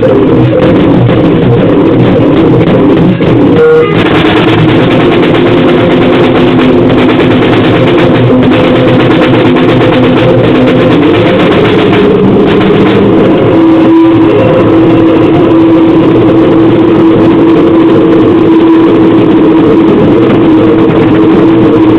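Harsh, heavily distorted noise-grind music: a loud, clipped wall of noise with held droning tones. The tones shift in pitch a few times, with a brief dip in level about three seconds in.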